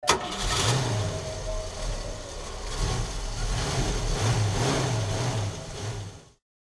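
Classic Ford Mustang's engine running, its revs rising and falling a few times. It starts abruptly and cuts off shortly before the end.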